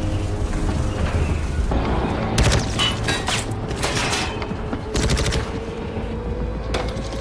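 Rapid bursts of gunfire, several quick volleys from about two and a half seconds in and one more shot near the end, with bullets striking metal. A dramatic film score and a low rumble run underneath.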